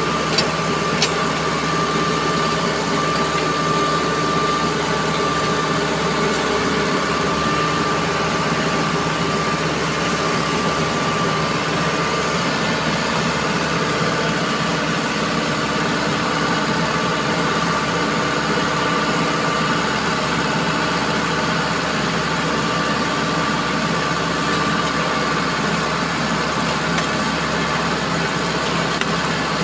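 Hydraulic earth-auger rig running steadily, engine hum with a steady high whine from the hydraulics, its level unchanging; two short clicks about a second in.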